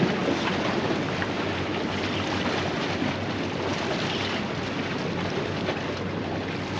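Steady wind rushing over the microphone with choppy sea water washing against the jetty rocks.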